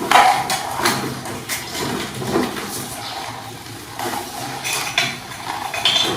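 Irregular clinking and clattering of dishware: light knocks and rattles at uneven intervals.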